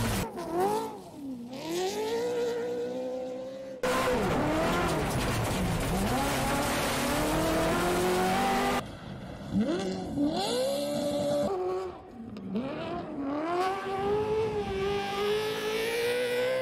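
Rally car with a Ferrari engine swapped in, revving hard on a loose gravel stage: the engine note climbs and falls again and again with gear changes and throttle lifts. A loud rushing noise from the tyres and gravel runs under it for a few seconds in the middle, and the sound breaks off abruptly a few times.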